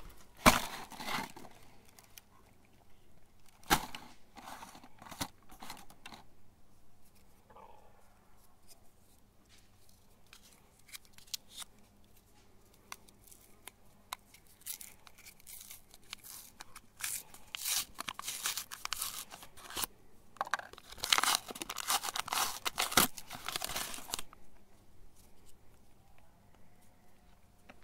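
Wrapper of a mini ice cream cone being torn and peeled off by hand, in several bursts of crinkling and tearing. The longest and loudest burst comes about two-thirds of the way through.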